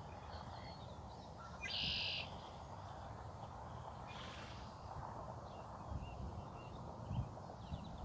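A bird gives one short call about two seconds in, with a few faint distant chirps later, over a quiet outdoor background.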